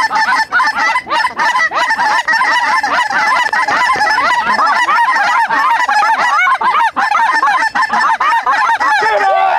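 A large flock of lesser Canada geese calling loudly and without a break, many short, high honks overlapping, as the birds drop in close to land.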